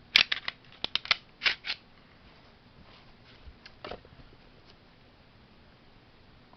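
Glock 17 Gen 4 pistol being field-stripped by hand: a quick run of sharp clicks and clacks in the first two seconds, and a few more about four seconds in.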